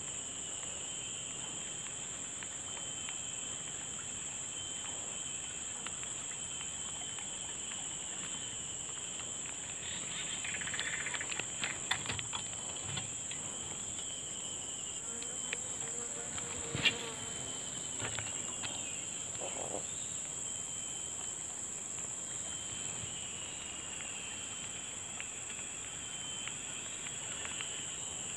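Steady, high-pitched chorus of insects droning without a break. A few brief clicks and knocks come about halfway through.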